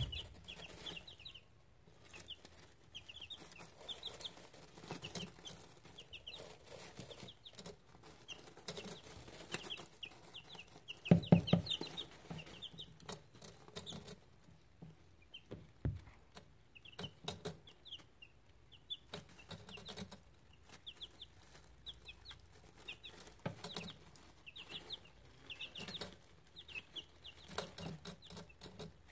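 Two-week-old buff chicks peeping in runs of short, high chirps, with scattered light clicks and taps among them. A single loud, dull thump stands out about eleven seconds in.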